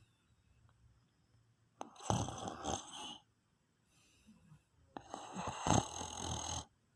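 A man snoring in his sleep: two noisy snoring breaths about three seconds apart, each lasting a second or more.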